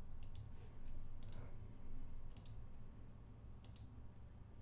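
Computer mouse button clicking four times, about a second apart, each a quick double click of press and release, over a faint steady low hum.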